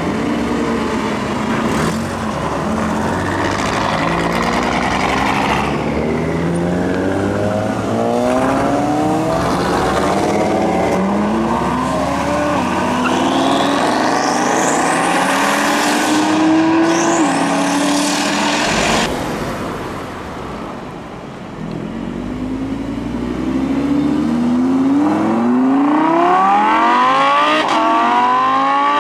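Supercars accelerating hard away one after another, each engine note climbing in pitch and dropping back at every upshift. First a Porsche Cayman GT4's flat-six, then a Ferrari 458 Italia's V8 revving to a very high whine, and after a short lull an Audi R8's V10 pulling through several gears.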